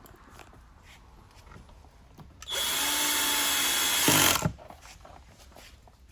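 Power drill or electric screwdriver running for about two seconds, as in driving a screw into the plastic panels, then stopping.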